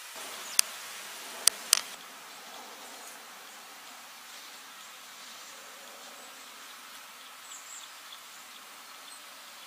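Three sharp clicks in the first two seconds, the last two close together, over a faint steady outdoor background hiss. A few faint high chirps come near the end.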